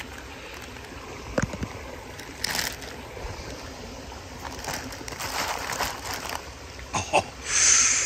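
Plastic zip-top bag crinkling and ice cubes clinking in a plastic pan as a can of beer is pulled out of the ice, over steady running river water. A short, loud crinkle of the bag comes near the end.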